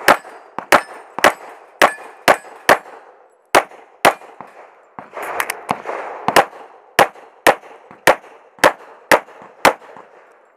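Glock 35 pistol firing .40 S&W 180-grain round-nose loads in a long string of well over a dozen shots, spaced roughly half a second apart, while hit steel targets clang and ring between the shots.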